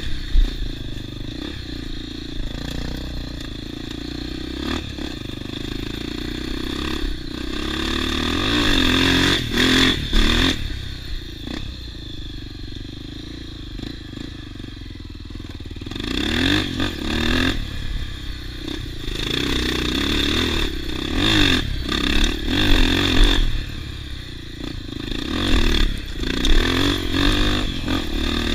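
Off-road motorcycle engine running and revving up and down in several surges, with a quieter lull in the middle and occasional knocks.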